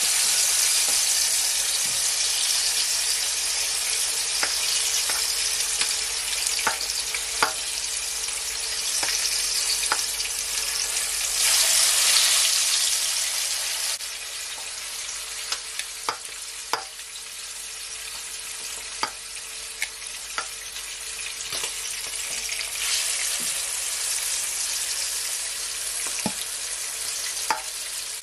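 Seasoned chicken pieces sizzling as they deep-fry in hot oil in a pot. The sizzle swells louder as more pieces are laid in, with scattered sharp pops and clicks.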